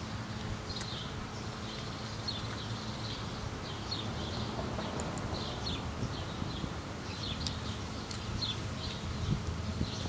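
Honey bee swarm buzzing with a steady low hum.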